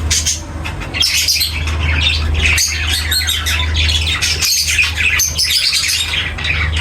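Flock of caged budgerigars and lovebirds chattering, with many overlapping chirps and harsh squawks, over a steady low hum.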